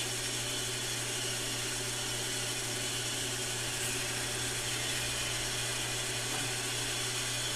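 Small lathe running steadily, its electric motor humming evenly as the spindle turns a cast-plastic workpiece.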